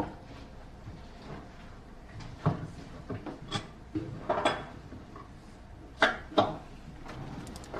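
A series of light knocks and clatters of household objects being handled, about seven in all, with the loudest two close together about six seconds in.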